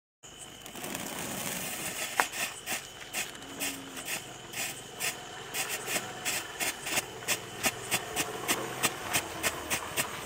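Elephant-brand Photo Flash strobe firework burning: a steady fizz, with sharp pops from about two seconds in that come faster and faster, about three a second by the end.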